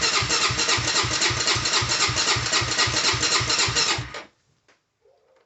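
Honda 400EX ATV engine being cranked by its electric starter, turning over in an even rhythm of about four pulses a second without catching, then stopping about four seconds in. It cranks but will not fire, which the owner takes for a spark problem, like cranking with the kill switch off.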